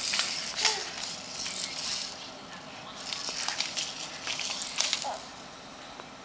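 Plastic baby rattle toy, a ball of loops with beads, shaken in two spells of rattling of about two seconds each.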